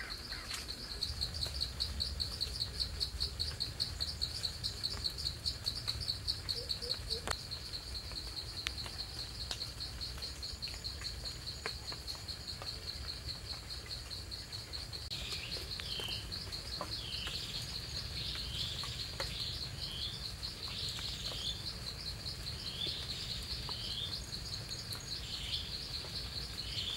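Forest ambience: an insect trills steadily at a high pitch in rapid pulses. From about halfway, a bird repeats short falling chirps about once a second.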